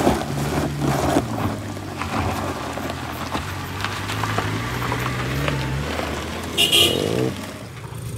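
Heavy diesel truck engine pulling under load at low revs, its pitch creeping up and then dropping away about six seconds in, with a short hissing burst about a second later.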